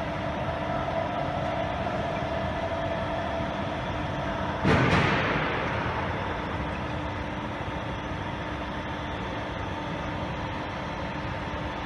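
Weiler Commodor lathe running with a steady machine hum and several steady tones. About five seconds in, a sudden loud burst of noise fades away over a second or two.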